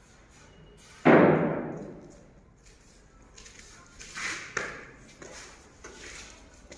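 A single loud bang about a second in, ringing on and dying away over about a second in the bare, echoing rooms, followed by a few softer knocks and scuffs.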